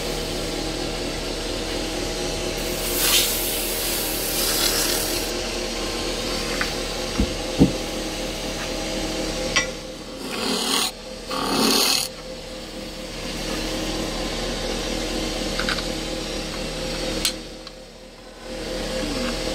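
Wood lathe running with a steady motor hum while a turning tool cuts the spinning wood, with hissing bursts of cutting a few seconds in and again about ten to twelve seconds in, and a few sharp ticks.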